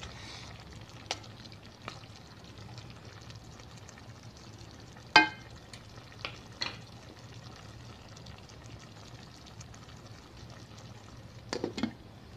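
A wooden spatula stirring chicken feet in a simmering adobo sauce in a metal pot, with faint sizzling over a low steady hum and scattered knocks of the spatula against the pot, the loudest about five seconds in. Near the end a glass lid clatters onto the pot.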